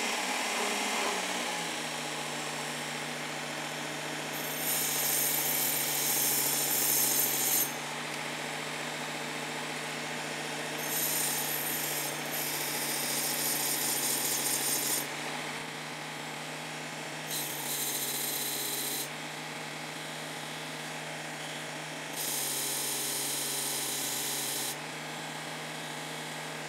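Work Sharp Knife & Tool Sharpener with its blade grinding attachment running steadily on a coarse belt. A pizza cutter's steel wheel is pressed to the belt in four grinding passes of a few seconds each, and each pass adds a loud hiss over the motor's hum.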